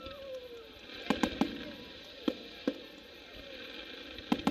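Aerial firework shells bursting at a display: a run of about seven sharp bangs, spaced irregularly, several of them coming in quick pairs.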